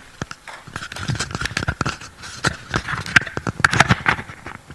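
Handling noise from a clip-on lapel microphone being fitted to a shirt: irregular knocks, taps and rustles, louder than the talk around them.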